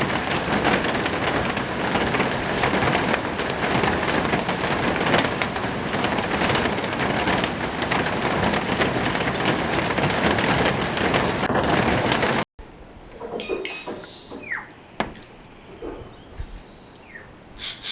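A loud, even rushing noise for about twelve seconds, then a sudden cut to a much quieter forest where birds call: short repeated high notes and a falling whistle, with a few faint clicks.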